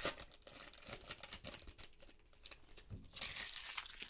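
Foil football card pack being torn open and crinkled by hand: scattered crackles and rustling, with a denser stretch of crinkling about three seconds in.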